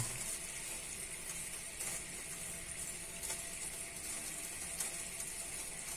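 Limca boiled down almost dry in a steel bowl over a gas burner: the thick sugary residue gives a faint, steady sizzle with light crackles as the last water cooks off and a brown-yellow layer forms at the sides.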